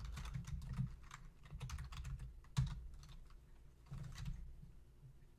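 Typing on a computer keyboard: quick runs of key clicks in short bursts with brief pauses between them.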